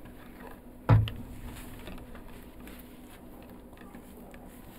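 A single sharp thump about a second in, then soft rustling and small taps as a wig is handled and pulled onto the head.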